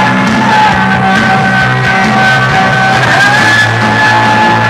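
Loud music played through car sound systems, with a steady bass line and a held high note that shifts in pitch about three seconds in.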